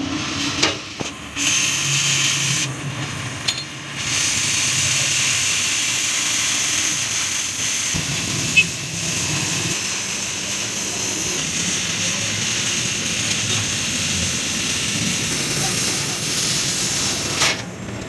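Oxy-fuel cutting torch hissing steadily as its flame cuts through steel plate, broken by a few short pauses in the first four seconds; the hiss stops just before the end.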